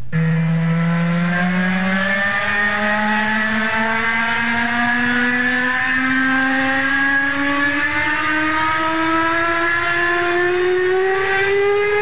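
Recording of the old Sea Lion's whistle blowing one long, continuous blast that slides slowly upward in pitch.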